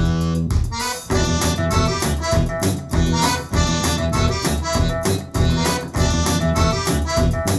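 Instrumental music with a steady beat, played through Polk Reserve R200 bookshelf speakers for a sound check.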